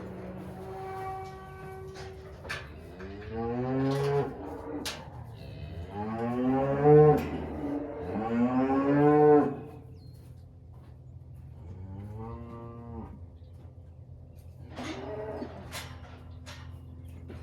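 Cattle mooing, about five drawn-out calls that rise and fall in pitch, the loudest two in the middle.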